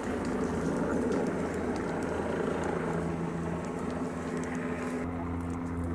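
Hose nozzle spraying water onto smouldering ground with a steady hiss, and a steady engine hum coming in about three seconds in.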